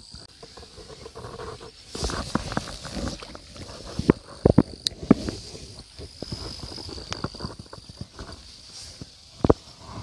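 Handling noise of a fishing rod and spinning reel: irregular clicks, knocks and rustles, with a few sharper knocks around the middle and near the end. A faint, steady, high insect drone runs underneath.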